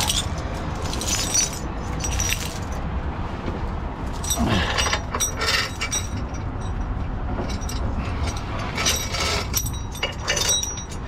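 Metal clinking and jangling in several short bouts, over the steady low rumble of a heavy truck's engine running.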